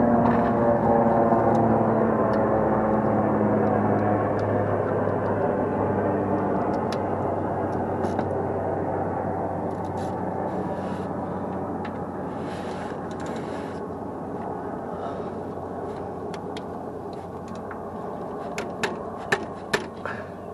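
A loud, steady noise of unknown source that slowly fades, with a ringing hum dying out over the first few seconds. Near the end come a few sharp metallic clicks as a ratchet and socket are fitted to a bolt under the car.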